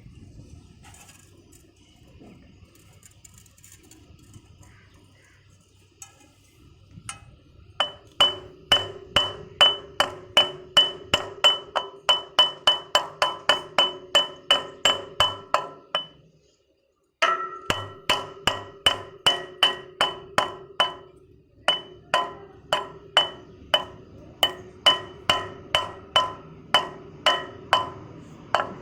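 Hammer blows on metal, about three a second, each strike ringing with a clear metallic note; the hammering starts after a quiet stretch, stops for about a second near the middle and then carries on.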